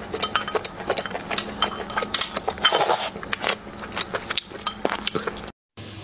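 Wooden spoon scraping and clicking against a ceramic plate, mixed with close-miked eating sounds, in a quick, irregular run of small clicks and scrapes. It cuts off abruptly about five and a half seconds in.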